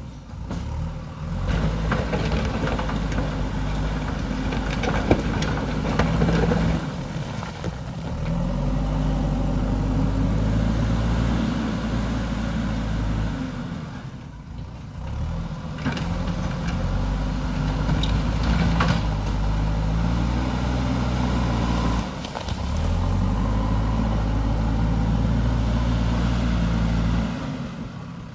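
JCB backhoe loader's diesel engine running under changing load, its pitch rising and falling several times as the machine works, with a few sharp knocks.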